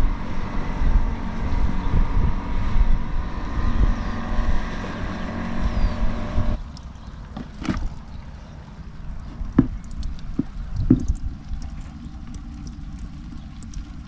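Wind buffeting the microphone, with a steady engine drone that cuts off suddenly about six and a half seconds in. After that there is lighter wind with a few brief knocks.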